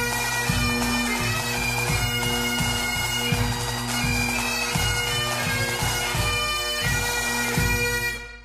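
Bagpipe music: a tune played over the pipes' steady drone, with a regular low drum beat, cutting off at the end.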